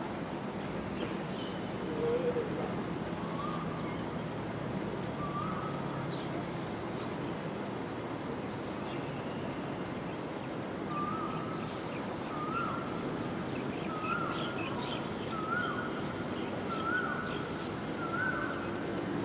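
A bird calling over and over with short notes about a second and a half apart, each slightly higher than the one before, over a steady background rumble of wind and distant noise.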